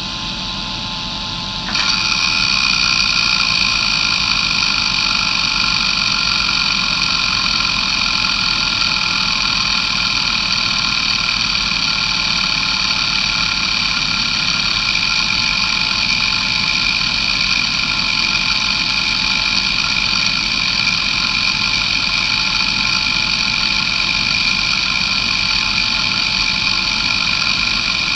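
Areal Technology MD2085 85 MB 2.5-inch hard drive, a roughly 3000 rpm drive with glass platters, seeking continuously during a seek-time test. A steady rapid head-seek noise comes in about two seconds in over the spindle's steady whine.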